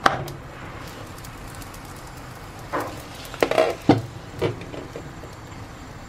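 A flatbread flipped over with a silicone spatula slaps down into a nonstick frying pan, the loudest sound, right at the start. About three to four and a half seconds in come a few more short knocks and clacks.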